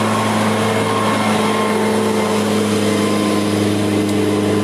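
A steady mechanical hum: a low drone with several fixed tones above it, unchanging throughout.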